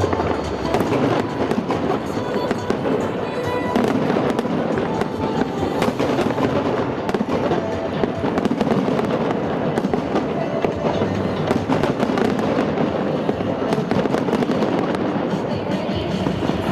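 Fireworks display: a dense, continuous run of bangs and crackles over a musical soundtrack.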